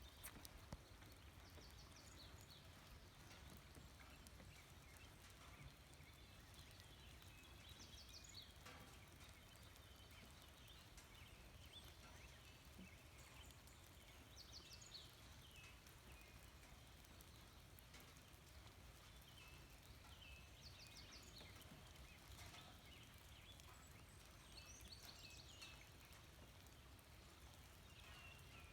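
Quiet outdoor nature ambience: faint bird chirps and short trills come every few seconds over a low steady rumble.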